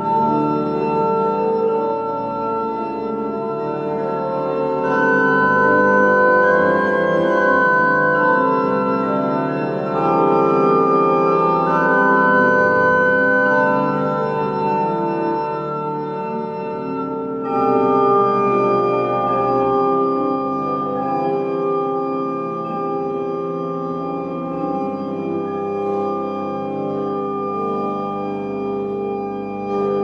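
Rieger pipe organ playing sustained chords that change every second or two, with a clear shift in the chord and its upper tones about seventeen seconds in.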